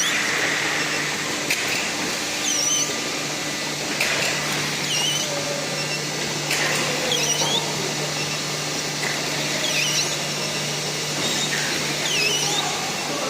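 Automatic shrink-wrap packaging machine running: a steady whirr of motors and blowers over a low hum, with a few clicks and short high squeaks every second or two.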